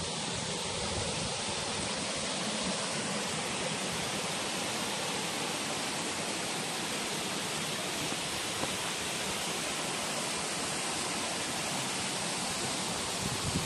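Waterfalls and cascades of a rocky mountain stream rushing in a steady, even hiss of falling water.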